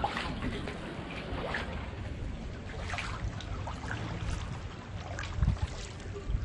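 Sea kayak paddling: splashes and drips from the paddle blade about every second or so, over a steady low rumble.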